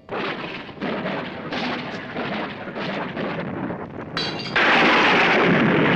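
Thunder: a heavy rumble breaks in suddenly and rolls on with irregular cracks, then a louder thunderclap crashes about four and a half seconds in and keeps rumbling.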